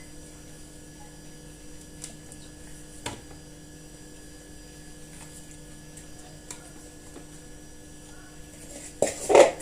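Steady low electrical hum with a few faint clicks, then a short loud clatter near the end.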